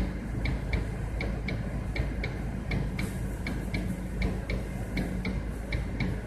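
A car's hazard-light flasher ticking at an even pace, about three to four clicks a second, over a low steady engine hum.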